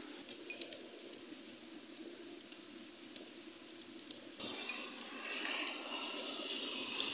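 Wood campfire crackling with a few sharp pops over the steady rush of a stream; the water sound gets louder about four seconds in.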